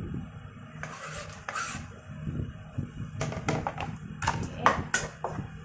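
Chopped shallots and garlic going into a hot wok of olive oil: a short sizzle about a second in, then a run of sharp knocks and clinks of kitchen utensils.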